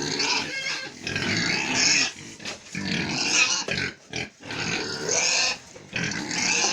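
Pigs squealing and grunting, about five loud high-pitched calls a second or so long each, as they clamour for feed of rice and yam peels.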